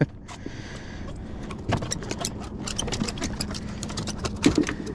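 Rapid, irregular clicking and ticking, several clicks a second, starting a little under two seconds in, over a faint steady low hum.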